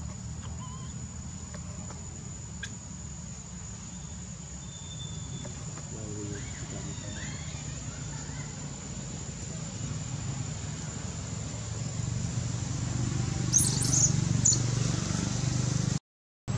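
Steady high-pitched insect drone over outdoor ambience, with a low rumble that grows louder in the second half. Near the end come a few brief crackles of dry leaves, then the sound cuts out abruptly.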